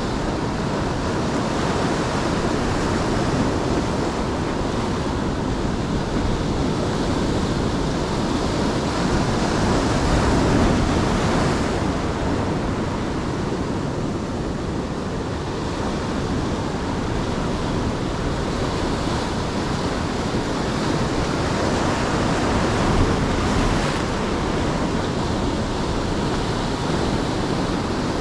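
Ocean surf breaking and washing on a beach, a steady rush that swells and eases with the waves, with some wind on the microphone.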